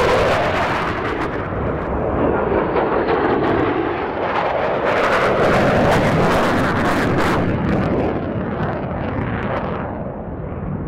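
Two F-35A fighter jets passing low: a loud jet roar that falls in pitch at the start, swells again with crackle about five to seven seconds in, then fades.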